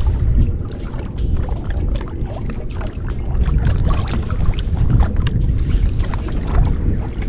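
Wind buffeting the microphone and water slapping against the hull of a bass boat, with scattered sharp clicks and splashes throughout.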